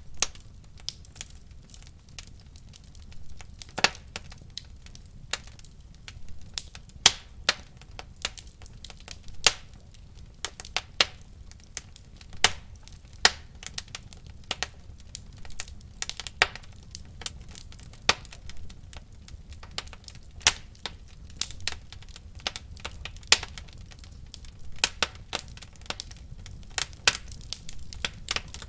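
Wood fire burning in a fireplace, crackling with irregular sharp pops over a low steady rumble of the flames.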